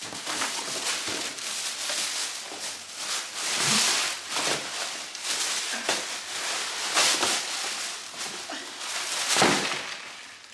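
Tissue and packing paper rustling and crinkling as it is handled and pulled out of a shoe box, with louder crinkles a few times.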